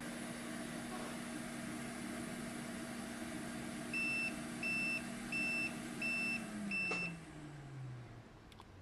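Quick 861DW hot air rework station's fan running with a steady hum. Five short high beeps come about 4 s in, then the fan winds down, its hum falling in pitch and fading out.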